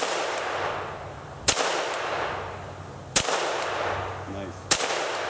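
Ruger Single-Six single-action revolver firing .22 Long Rifle rounds: four shots about a second and a half apart, each sharp crack followed by a long echoing tail.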